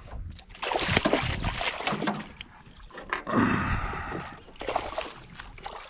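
Irregular splashing and sloshing of water in two main bursts as a hooked peacock bass (tucunaré paca) thrashes at the surface and is lifted out beside an aluminium boat.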